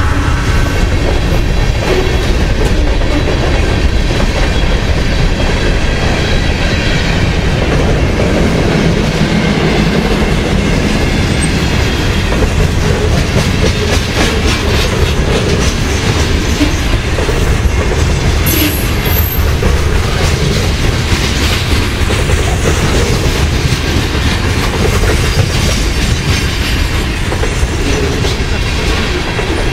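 Freight train cars rolling past close by at restricted speed: a steady rumble and clickety-clack of steel wheels over the rail joints. A brief high wheel squeal comes about two-thirds of the way through.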